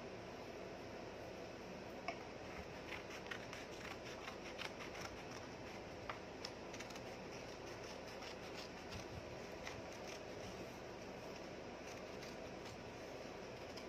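Small scissors snipping through a sheet of green craft paper, with paper rustling as the sheet is handled. The snips are short, faint and irregular, thickest in the first half, over a steady background hiss.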